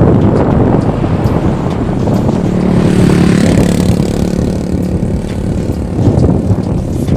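Heavy wind buffeting on the microphone while riding a bicycle along a road. A motor vehicle's engine passes close by from about two to five seconds in.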